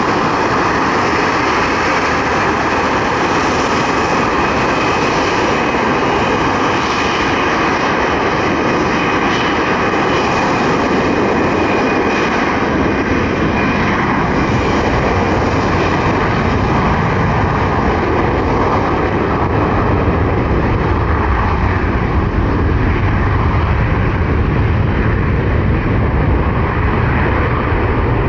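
Ilyushin Il-76's four turbofan jet engines running loud and steady during takeoff. In the second half the high hiss thins and a deep low rumble grows stronger.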